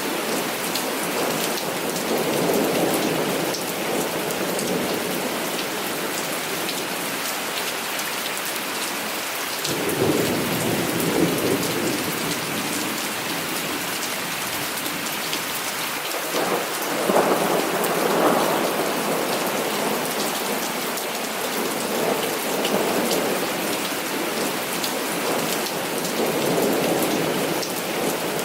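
Heavy rain pattering steadily, with rolls of thunder rumbling through it, the strongest two starting about ten seconds in and about seventeen seconds in.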